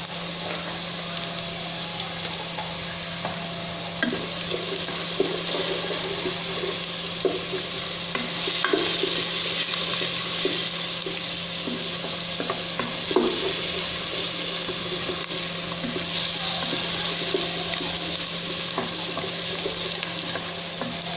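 Chopped garlic, ginger and onion sizzling in hot oil in a stainless steel pot, with a spatula stirring them and knocking and scraping against the pot now and then. A steady low hum runs underneath.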